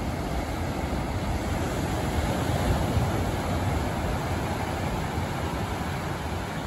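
Big ocean surf breaking and washing up the shore in foam: a steady rush of noise with a deep rumble underneath, swelling a little around the middle.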